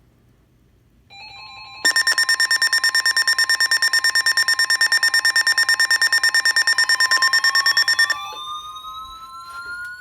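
Alert tones between weather-radio warnings: a steady high single tone, typical of the 1050 Hz NOAA Weather Radio warning alarm, starts about a second in. About two seconds in, a loud, rapidly pulsing electronic alarm beep joins it and lasts about six seconds. Near the end a tone glides steadily upward in pitch.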